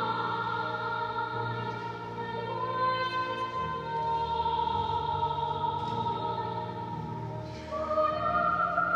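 A woman singing long, held notes in a classical, operatic style, over a low accompaniment that moves in slow chords. A new, higher phrase begins near the end.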